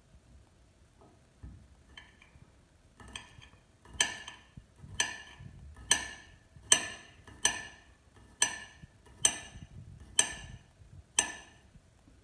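Kitchen knife slicing garlic cloves on a ceramic plate, the blade striking the plate with about a dozen sharp clicks, roughly one a second, each with a short ring. The clicks start about three seconds in.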